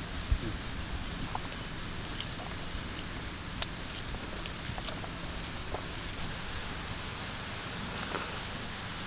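Steady outdoor background hiss with faint scattered clicks and soft squishing as a hand mixes rice and mashed greens on a steel plate, and one low thump just after the start.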